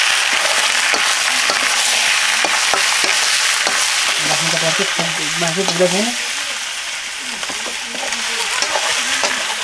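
Chunks of pork sizzling in hot oil in an iron wok, stirred with a metal spatula that scrapes and clicks against the pan. The sizzle is a steady, loud hiss.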